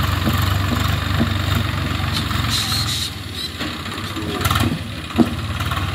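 Swaraj tractor's diesel engine running steadily while driving a rotary tiller, its low hum dipping a little mid-way. A single sharp click about five seconds in.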